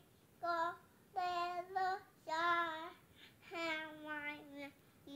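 A young girl singing in a small child's voice: about six sung notes, some of them drawn out, with short pauses between.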